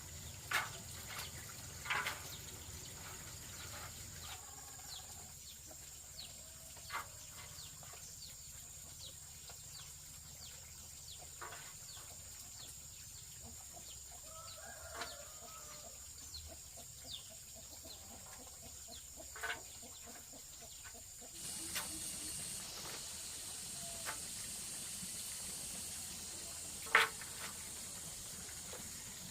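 Chickens clucking now and then over a steady high-pitched hiss, with scattered light clicks and knocks; the hiss grows louder about three-quarters of the way through.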